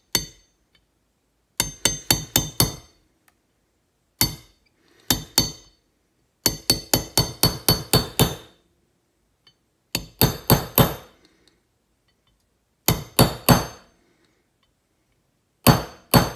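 Small hammer tapping a steel punch to drive the spring-loaded extractor down into a SIG P365 slide. The light strikes come in separate bursts, from single taps to runs of about ten at several a second, each with a short metallic ring.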